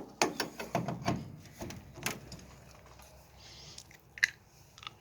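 A reinstalled door handle being turned and rattled to test whether the latch works: a quick run of sharp metallic clicks and knocks in the first two seconds, then a few scattered clicks.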